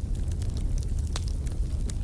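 Wood fire crackling: a steady low rumble of burning with frequent sharp pops and snaps, one louder pop a little past halfway.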